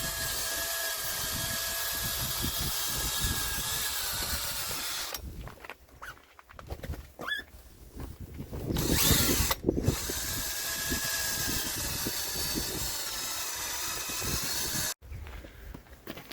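Electric drill spinning a headlight-restoration pad against a plastic headlight lens, with a steady motor whine. It runs for about five seconds, stops, runs again for about five seconds, and cuts off suddenly near the end, with a short louder hiss in the pause.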